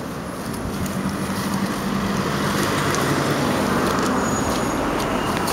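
A road vehicle's engine running with a steady low hum over a rushing noise, getting louder about a second and a half in.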